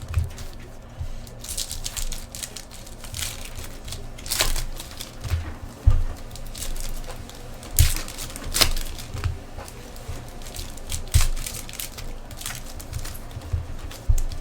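Trading-card packs being handled and opened: foil wrappers crinkling and tearing, with irregular clicks, taps and a few dull knocks on the table.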